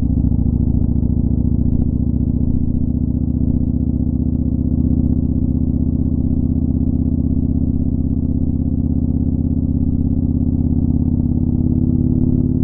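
Motorcycle engine running at a steady cruising speed, heard from a camera mounted on the bike, with a fast even pulse and no change in pitch.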